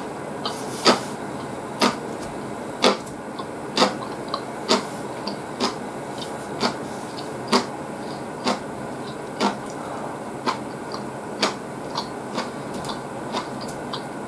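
A person chewing a mouthful of tsukemen noodles, with a sharp wet smack about once a second and softer mouth clicks in between.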